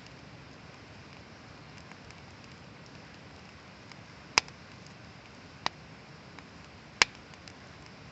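Wood fire burning with a soft steady hiss and faint crackling, broken by three sharp loud pops in the second half, roughly a second apart.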